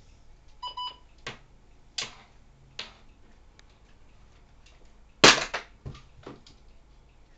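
Plastic clicks and rattles of batteries being taken out of a handheld weather radio's battery compartment, with two quick electronic beeps just under a second in and one loud sharp clack about five seconds in, followed by a few lighter clicks.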